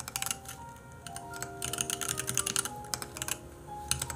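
Computer keyboard typing in quick runs of clicks, three short runs, over soft background music with held notes.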